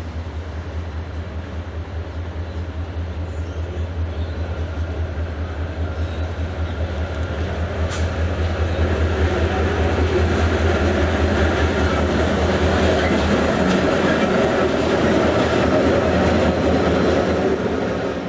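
Aurizon (QR National) CLP-class diesel locomotive CLP11 running light engine, its deep, steady engine drone growing louder as it approaches and passes. A single sharp click comes about eight seconds in.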